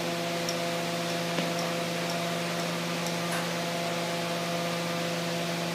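Glassblowing torch burning with a steady hiss, over a steady hum.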